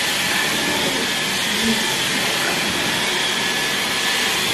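Cordless stick vacuum cleaner running steadily as it is pushed over a fabric sofa: a loud, even rush of air with a thin high whine.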